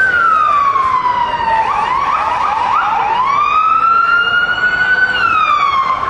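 Police car siren wailing loudly in slow rising and falling sweeps, with a short run of rapid yelps about two seconds in before the wail rises again.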